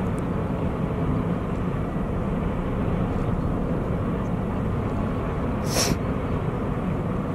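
Steady low rumble of a large car ferry's engines and thrusters running as the ship manoeuvres alongside the quay. A brief hiss comes about six seconds in.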